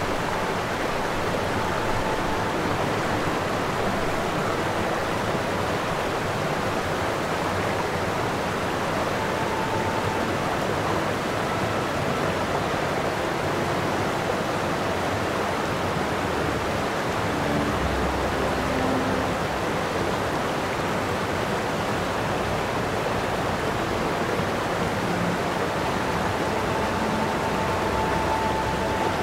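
Steady, even rushing noise, with no music or voices.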